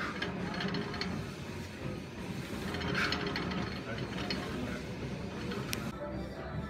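Gym weight machine in use: the lever arm, cable and pulleys run with a steady low mechanical rumble as the padded roller is raised and lowered, with a sharp click near the end.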